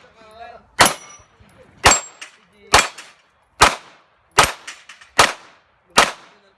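Pistol fired seven times at a steady pace of about one shot a second, each shot a sharp crack with a short ringing tail.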